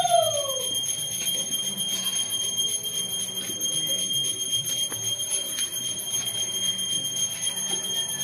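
A pitched tone falls and dies away in the first second. After that a steady high whine holds over a low hum, with a few light clinks of a metal spoon against aluminium pots as rice is scooped.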